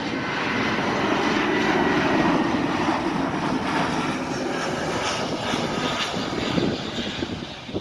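Boeing 777-300 twin jet engines running at takeoff thrust: a loud, steady rush and rumble with a faint high fan whine, easing off near the end.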